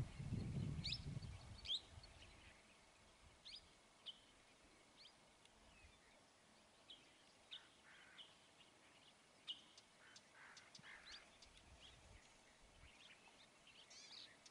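Wild birds giving scattered short chirps and quick high calls, faint, with a low rumble fading out over the first two seconds.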